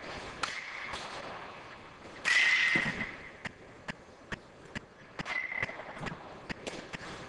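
A string of sharp cracks and clicks. The loudest comes about two seconds in with a brief ringing ping, another ringing crack comes about five seconds in, and quieter ticks fall between them.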